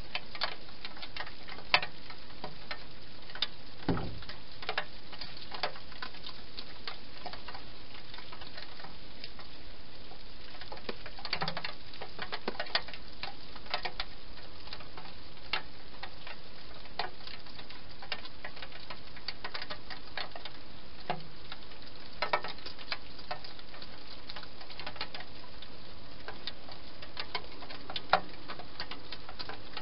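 A wild hedgehog eating inside a plastic feeding box: irregular, crisp clicks of chewing and mouthing food, with one dull knock about four seconds in, over a steady hiss.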